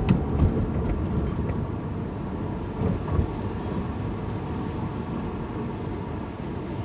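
Steady low rumble of a car's engine and road noise heard inside the cabin, with a couple of brief knocks just after the start and about three seconds in.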